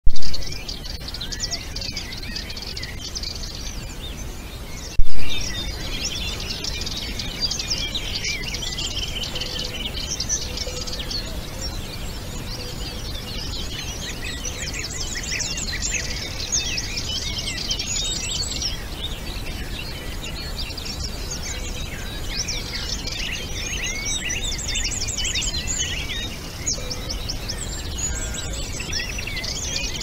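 Several songbirds singing at once in a dense, continuous chorus of chirps and warbles. Two short, loud thumps break in, one at the very start and one about five seconds in.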